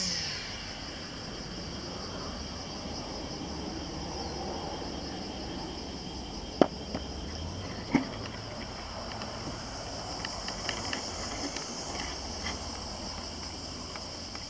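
Steady high-pitched insect chorus. Two sharp knocks sound about a second and a half apart, around the middle, followed by a few fainter ticks.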